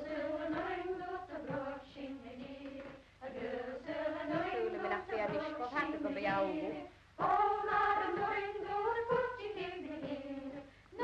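A group of women singing a Gaelic waulking song together, in long rhythmic phrases that pause briefly about three seconds and again about seven seconds in.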